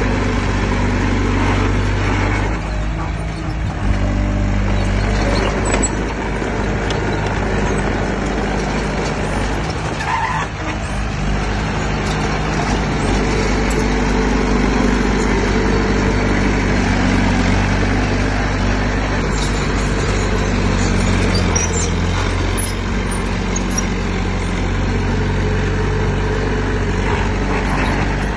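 Heavy diesel engine of earthmoving equipment running steadily under load, its pitch shifting a little now and then.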